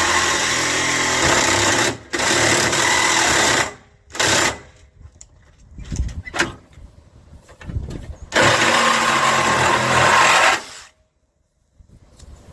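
Power saw cutting through a scrap slide in repeated runs. It runs for about two seconds at a time with short pauses, gives a brief burst, then runs again for over two seconds before it stops near the end.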